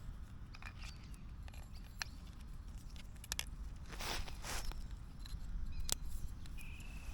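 Scattered clicks, taps and short rustles of gear being handled while a portable radio station is set up, over a steady low wind rumble on the microphone.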